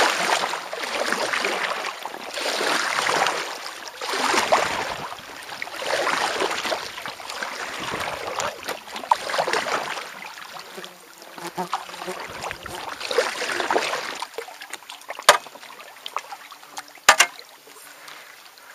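Kayak paddle strokes splashing and swishing through lake water in a regular rhythm, about one every two seconds, growing weaker in the last few seconds, with two sharp knocks near the end.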